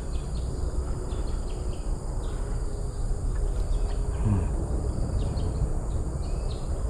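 Outdoor ambience of insects chirping and buzzing, with short chirps scattered through over a steady low rumble.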